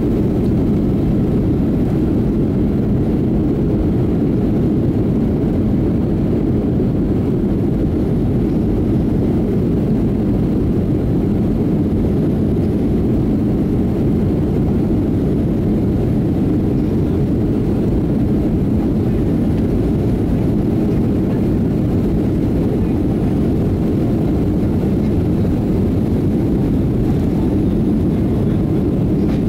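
Airliner cabin noise during the takeoff roll: the jet engines and the wheels on the runway make a steady, low rumble heard from inside the cabin.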